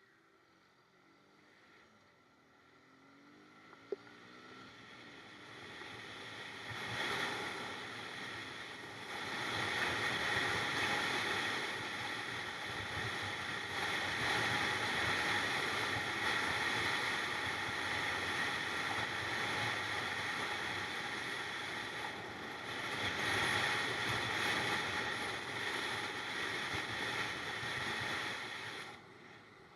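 Motorcycle being ridden: rushing wind and engine noise swell over the first ten seconds or so as speed builds, then hold steady. A single sharp click about four seconds in.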